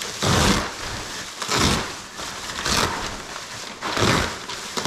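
Bagged packaging rustling and crinkling as it is pulled open, in about four short bursts a second or so apart.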